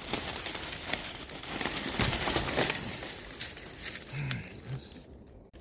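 Dense rustling, crackling and snapping of dry leaves and brush, busiest in the first half and tapering off. About four seconds in there is a brief low vocal sound.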